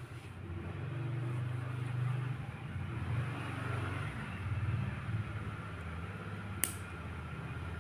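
Low rumble of a motor vehicle's engine, swelling and easing, with one sharp click about six and a half seconds in.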